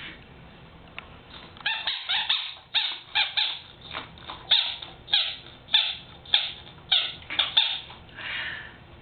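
A squeaky dog toy squeaking over and over, about two short high-pitched squeaks a second, after a quiet first second and a half.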